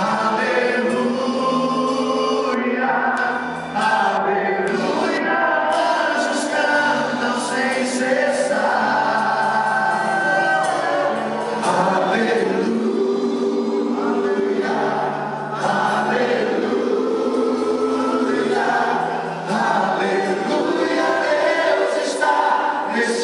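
Live Catholic worship song: many voices singing together in long, held lines over instrumental backing.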